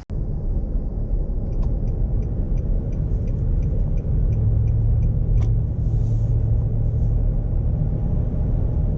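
Exhaust of a Nissan Patrol Y62's 5.6-litre V8, fitted with a replacement muffler, running with a steady low rumble; a deeper steady note comes in about four seconds in. Faint regular ticks sound in the first half.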